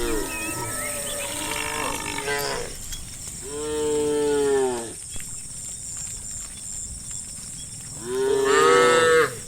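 Cows mooing: several overlapping moos in the first couple of seconds, then two separate long moos, each rising and falling in pitch, the second near the end the loudest.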